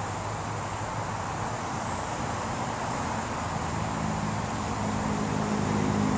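Steady road-traffic rumble and hiss, with a vehicle's engine hum growing louder in the last couple of seconds.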